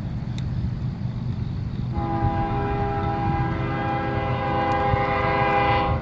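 First-generation Nathan K5HLL five-chime air horn on a GE ES40DC locomotive sounding one long blast. It starts about two seconds in and holds for about four seconds, growing louder toward the end, over a steady low rumble.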